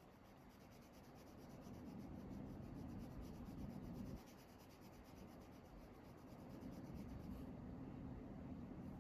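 Faint scratching of a pen drawing on paper.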